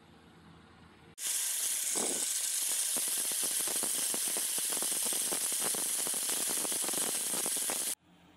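Angle grinder with a white disc running against a knife's wooden handle and brass ferrule, giving a loud, hissing, fast rattling scrape. It starts abruptly about a second in and cuts off abruptly near the end.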